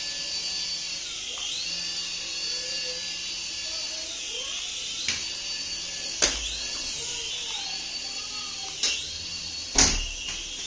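Small electric motor of a remote-control toy whining at a high pitch, speeding up and slowing down again and again. Four sharp knocks, the loudest about six seconds in and near the end.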